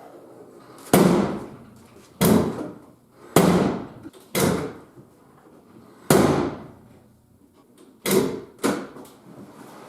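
Jeep Wrangler YJ full steel door being shut and latched again and again, about seven sharp bangs a second or so apart, as its newly replaced interior door handle is tried out.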